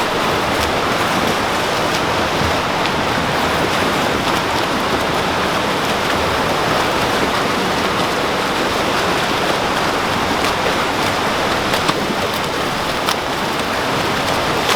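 Steady splashing of swimmers swimming laps in a pool: a continuous loud wash of churning water.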